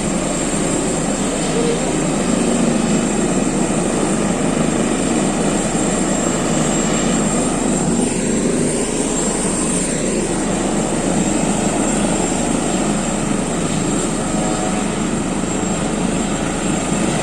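Helicopter close by, its rotor and turbine engine running loud and steady as it readies to take off.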